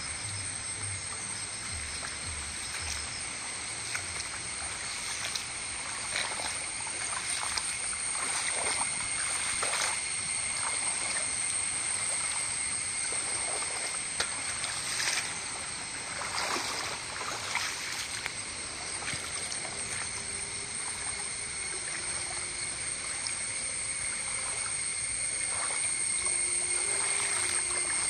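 Brown floodwater from a river in spate rushing and swirling through flooded ground: a steady watery rush with scattered small splashes, over a steady high-pitched whine.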